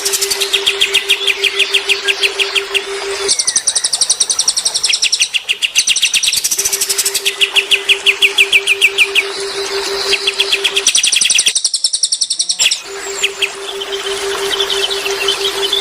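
Cililin and kapas tembak songbirds singing fast, rattling trills in repeated phrases, some lower and some very high. A steady low hum comes and goes under them, and the sound cuts out abruptly for about a second near the end.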